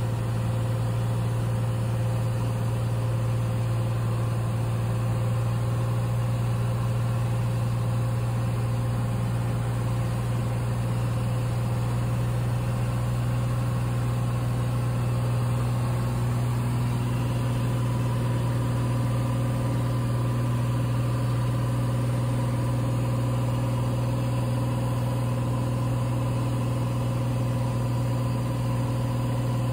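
Cessna 182's piston engine and propeller droning steadily in flight, heard inside the cabin as a constant low hum; a slightly higher tone joins the drone about halfway through.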